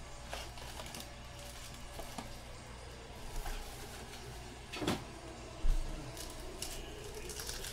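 Hands handling a cardboard trading-card box and its foil card packs: scattered light clicks and rustles. There is a sharp tap about five seconds in, and a dull thump just after it, the loudest sound.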